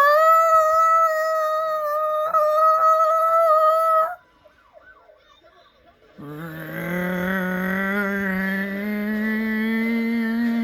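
A man's voice imitating film sound effects: a high, siren-like wail held for about four seconds, then, after a short pause, a lower drawn-out tone that slowly rises in pitch.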